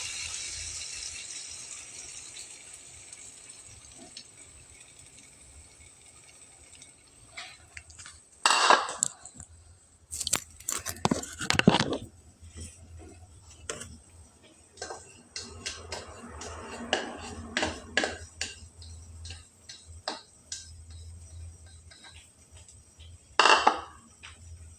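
Frying sizzle dies away over the first few seconds. Then come irregular clinks and clatters of cookware and utensils, with the loudest bursts about 8 to 12 seconds in and again near the end.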